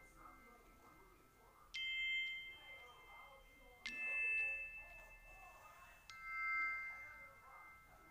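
Sparse background music of struck chime-like notes: three notes of different pitch about two seconds apart, each ringing and fading.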